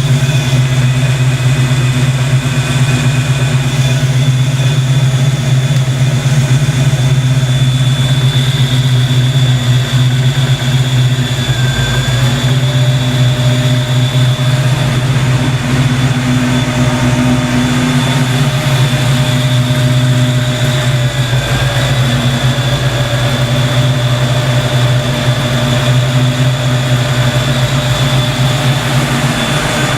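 Ford Fox Body Mustang engine idling steadily, with its dual electric radiator cooling fans running. A steady high whine sits over the low engine hum throughout.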